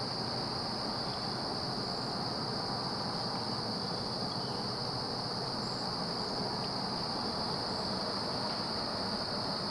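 Insects chorusing in one continuous high drone, over a steady low hiss of outdoor background noise.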